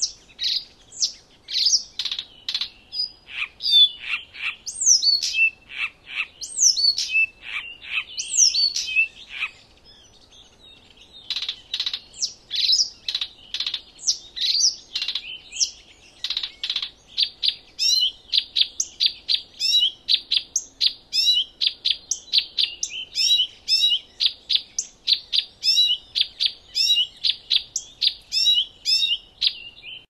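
A bird calling and singing: a string of short chirps and sweeping whistled notes. After a brief lull about a third of the way in, it settles into a quick, even run of repeated notes, about three a second.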